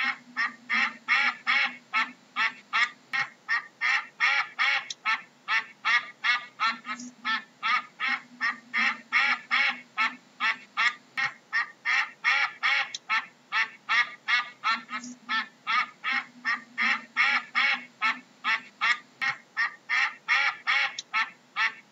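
Ducks quacking in a rapid unbroken series, about four calls a second.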